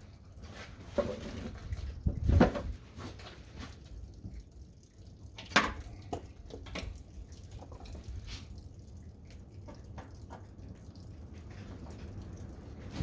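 Scattered, irregularly spaced clicks and knocks over a low steady rumble; the loudest is a thump about two and a half seconds in.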